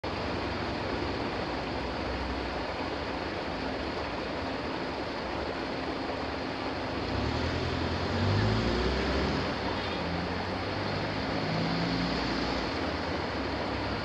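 Steady wind rush over the microphone with road traffic. About seven seconds in, a van's engine pulls away, rising in pitch, the loudest moment; a second small van's engine follows near the end.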